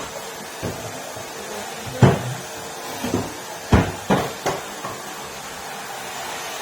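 Numatic Henry vacuum cleaner running steadily, with a run of about six hard knocks and bumps over a few seconds, the loudest about two seconds in.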